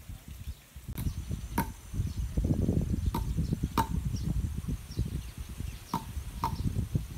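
Footsteps crunching on a gravel path, with a dense low crackle of feet and stones. Sharp clicks come in pairs about half a second apart, three pairs in all.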